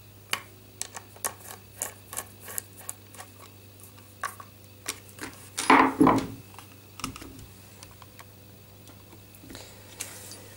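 Small irregular clicks and ticks of a screwdriver working countersunk screws through an acrylic base plate into a plastic support block. About six seconds in comes one louder rub and knock, falling in pitch, as the acrylic sheet is turned over and set down.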